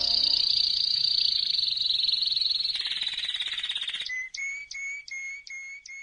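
Canary singing: a fast, rattling trill that slides slightly down in pitch. About four seconds in it switches to evenly spaced short chirps, about three a second, that fade out.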